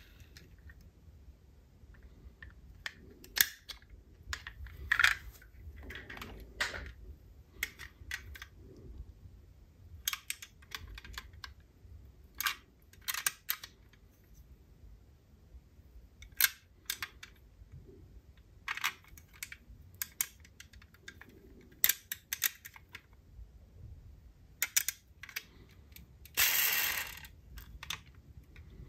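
Small diecast metal toy cars clinking and clicking against each other and their box as they are handled. The knocks are sharp and irregular, scattered throughout, with a longer rattle of about a second near the end.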